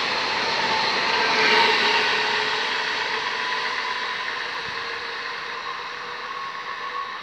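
A Stadler FLIRT electric multiple unit train runs past and pulls away along the track. The wheel and running noise is loudest about a second and a half in, then fades steadily as the train recedes.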